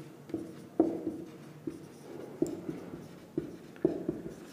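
Marker pen writing on a whiteboard: a string of short, separate scratching strokes, about two a second, as words are written out.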